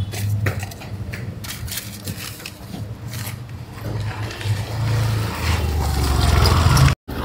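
Street ambience: a low traffic rumble that swells over the last couple of seconds, with scattered light clicks and knocks.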